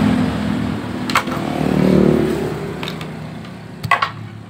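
A motor vehicle's engine passing by, swelling to its loudest about two seconds in and then fading away. A few sharp clicks are heard along the way.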